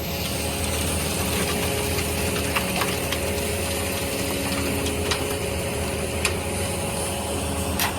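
An engine running steadily with a low hum, with a few light clicks and taps over it.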